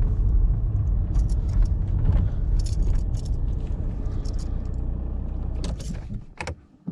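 Car driving, with a steady low rumble of engine and road heard from inside the cabin and light clinks and rattles over it. The rumble dies away near the end as the car slows.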